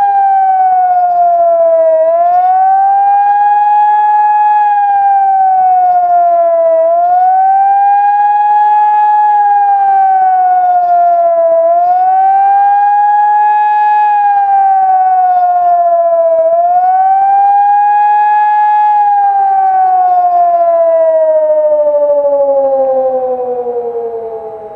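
Hörmann ECN 2400 electronic civil-defence siren sounding a loud wailing tone whose pitch rises and falls about every five seconds, the rising-and-falling warning signal. Near the end it slides steadily down in pitch and fades out as the signal winds down.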